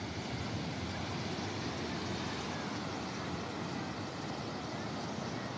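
Ocean surf breaking and washing in: a steady rushing noise with no distinct crashes.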